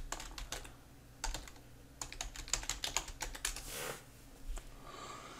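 Typing on a computer keyboard: short runs of key clicks with pauses between, the longest run from about two to three and a half seconds in.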